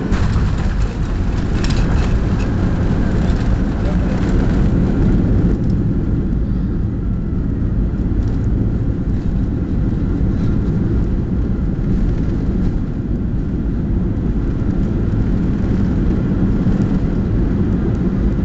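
Steady cabin rumble of a Boeing 737-800 in flight, its engines and airflow heard from inside the cabin as a deep, even roar.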